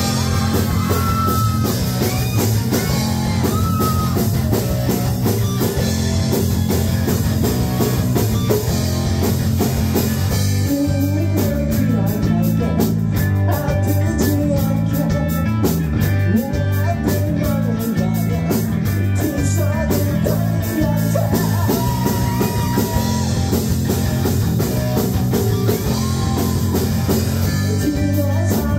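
A live rock band playing, with guitar, bass and drum kit under a lead vocal sung into a handheld microphone. A quick, even cymbal beat comes in about eleven seconds in.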